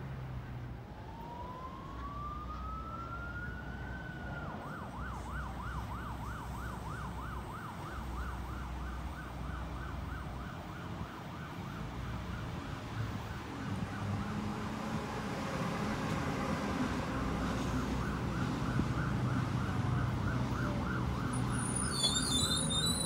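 An emergency vehicle siren sounds a long rising wail, then switches about four seconds in to a fast yelp of about four cycles a second that keeps going. In the second half an electric suburban train rumbles in alongside the platform and stops.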